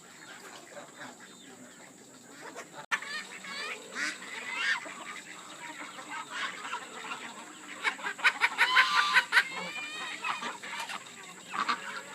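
A mixed flock of chickens, ducks and geese calling. The calls are sparse and quiet at first, then grow busier, with a dense run of rapid repeated calls about eight seconds in.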